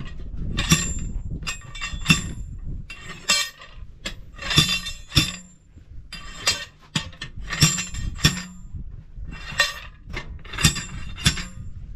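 Repeated metallic clanks with a brief ring, coming irregularly and often in quick pairs: a bead breaker being worked against a truck tyre to break its bead off the rim.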